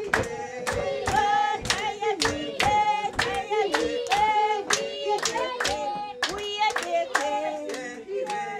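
Group hand-clapping in a steady rhythm, about two to three claps a second, with voices singing along.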